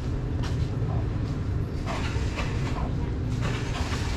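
A kitten chewing wet cat food at close range, with irregular short wet smacks and clicks, over a steady low rumble.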